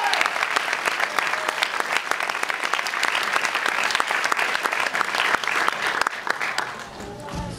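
Audience applauding in a theatre: dense, steady clapping that thins out near the end as music begins to come in.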